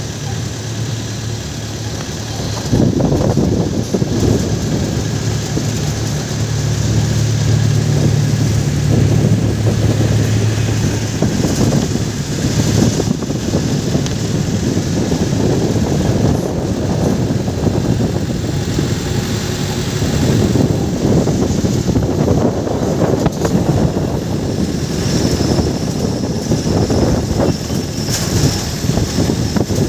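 Engine running steadily under a constant low rumble, with a low hum that stands out for a few seconds near the start.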